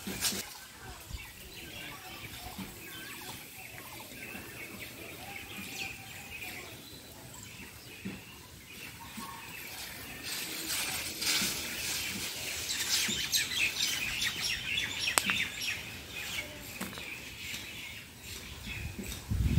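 Pesticide sprayer hissing as the spray mix is sent onto a litchi tree's foliage, louder in the second half. Birds chirp in the background.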